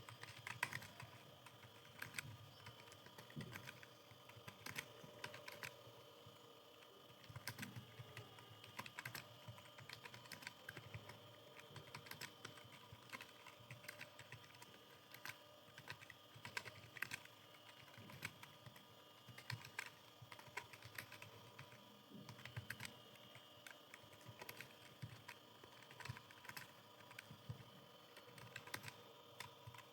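Computer keyboard being typed on steadily, a fast, irregular run of soft key clicks.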